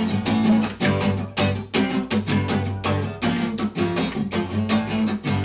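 Background music led by a quickly strummed guitar.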